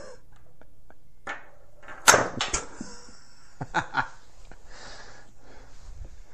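Small plastic staircase pieces with strong magnets inside being handled: a sharp click about two seconds in, then a few lighter clicks.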